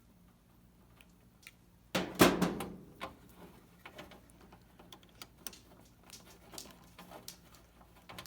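Small clicks and light rattling as a Roper electric dryer's timer (Whirlpool part WP8299765) and its wire connectors are handled, with one louder clunk about two seconds in. The rattle sounds like something loose inside the timer, the suspected cause of the dryer not starting.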